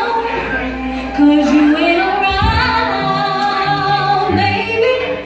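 A woman singing live through a microphone and PA, drawing out long sliding runs over accompaniment with low bass notes and a slow drum thump.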